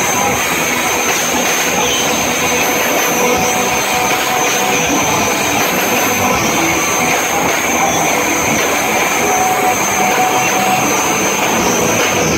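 Live rock band's distorted electric guitars and amplified stage noise blurring into one dense, steady wash, with a few faint held notes underneath.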